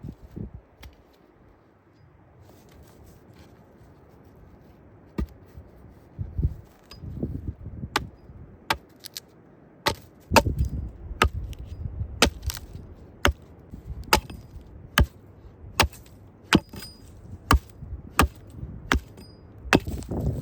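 Sharp chopping strikes on wood: a few scattered blows, then a steady series of about one blow a second through the second half.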